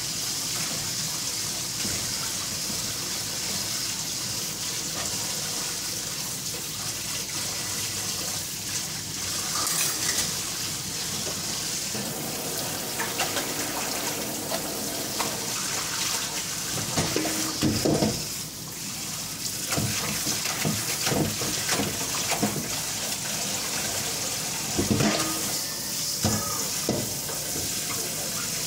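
Kitchen tap running steadily into the sink, with dishes or utensils knocking and clattering in two spells, about two-thirds of the way through and again near the end.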